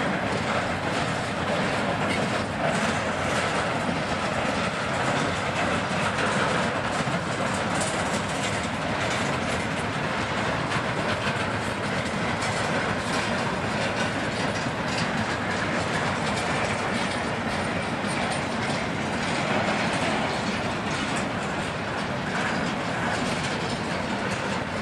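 CSX freight train cars rolling past at a grade crossing, steel wheels clattering steadily over the rails and crossing.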